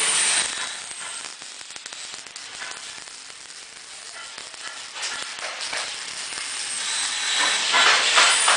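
Welding arc crackling and sizzling, dipping quieter after about a second and growing louder again over the last few seconds.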